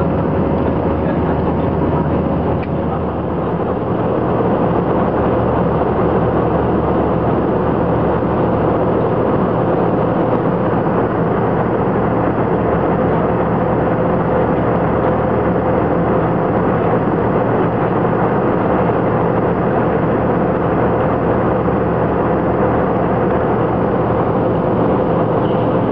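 Steady cabin noise of an Airbus A319 in flight: the constant rush of its jet engines and airflow over the fuselage, with a steady droning tone running through it.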